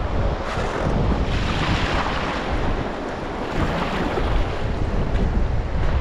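River water rushing around a raft, with heavy wind buffeting the microphone; the rush of water swells in the middle.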